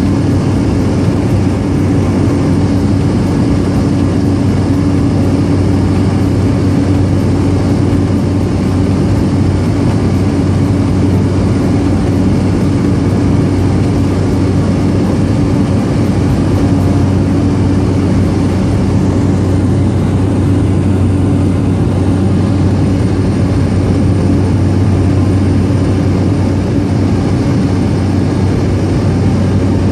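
Small propeller aircraft's engine running steadily in flight, heard from on board: a loud, constant low drone with a steady hum.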